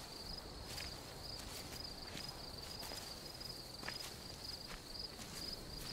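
Crickets chirping steadily in a night ambience, with a few soft footsteps through grass.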